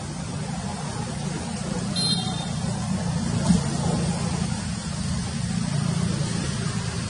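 Steady low rumble of background noise, with a brief high squeak about two seconds in and a short knock about halfway through.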